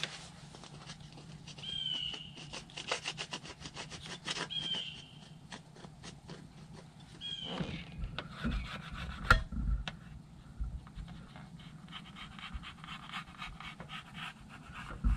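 Rubbing and scraping of a silicone roof-flashing boot being worked by gloved hands against a ribbed steel roof, with quick clicks, a few short high squeaks, and some dull knocks about halfway through.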